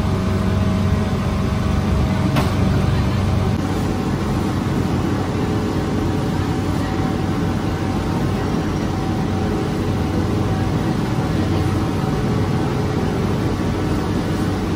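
Steady mechanical drone with a low hum from a bakery's rotating-deck bread oven and its machinery.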